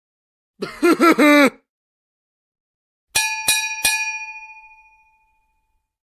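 A small metal bell struck three times in quick succession, ringing on and fading out after the last strike: a comedic 'ding ding ding' sound effect. Before it, about a second in, comes a brief voice-like sound with a few bending syllables.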